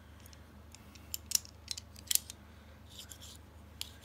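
Small sharp metallic clicks and snaps from a disassembled out-the-front knife's blade and spring-driven slider mechanism being worked by hand, a handful of irregular clicks with a brief rubbing sound near the end.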